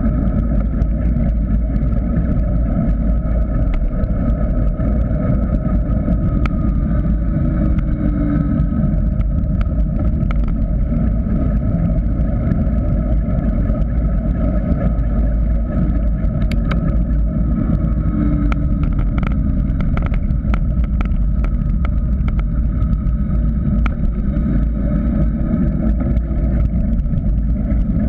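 Wind rushing over a bike-mounted GoPro Hero 3 during a fast mountain-bike descent, with steady tyre noise on asphalt and scattered rattles and knocks from the bike over bumps.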